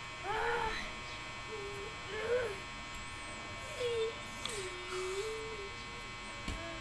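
A child's fussing cries: several short, wavering whines, the longest about five seconds in, over a steady faint electrical hum.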